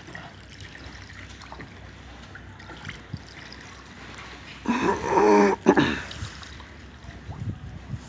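Soft trickling and lapping of canal water as a gondola oar strokes through it. About halfway through, a voice calls out loudly once for about a second.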